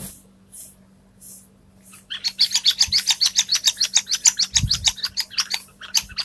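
Electronic sound module in a children's shake-me board book playing a fast run of high squeaky chirps, about eight a second, starting about two seconds in. Before it come three short swishes as the book is shaken, and a couple of soft low thumps from handling it.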